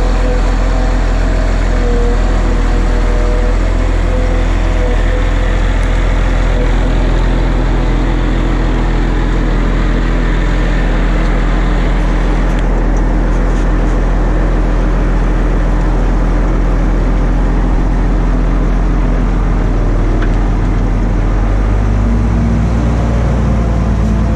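Volvo motor grader's diesel engine running steadily under load as the grader pushes its blade through gravel, heard close up from outside the cab.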